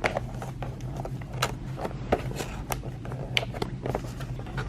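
Scattered light clicks and knocks of takeout food containers and packaging being handled, over a steady low hum.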